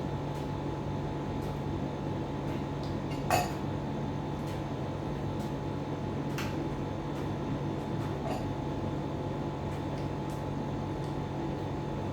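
Scattered light clinks of dishes and cutlery over a steady background hum, with one louder clink about three seconds in.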